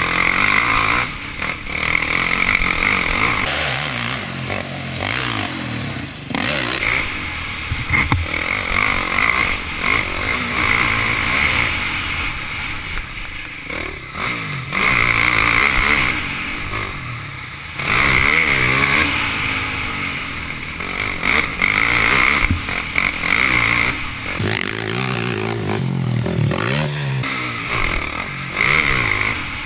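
Off-road motorcycle engine heard from an onboard camera, revving up and dropping back over and over as the bike rides a rough dirt track, with scattered knocks and clatter.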